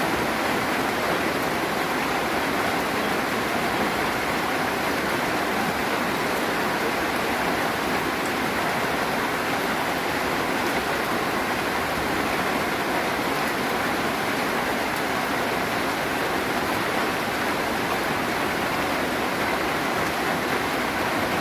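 Steady heavy rain: an even, unbroken hiss of falling water with no single drops standing out.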